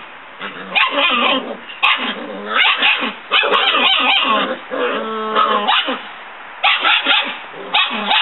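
Five-week-old German Shepherd puppies play-fighting, giving repeated short high yips and barks with some growling. About five seconds in, one lets out a longer, drawn-out cry.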